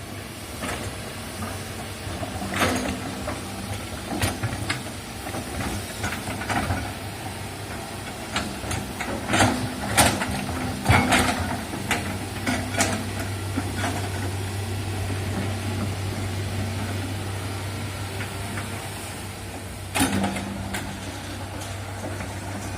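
Hydraulic excavator working: its diesel engine runs with a steady low hum, under irregular sharp knocks and clanks that come thickly through the first half and once more about twenty seconds in.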